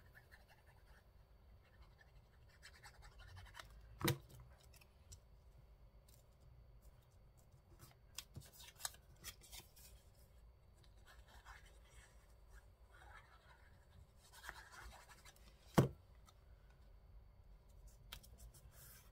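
Faint scratching and rubbing on paper with small scattered clicks, from hands working on paper craft. Two sharp knocks about twelve seconds apart, as of something set down on the table, are the loudest sounds.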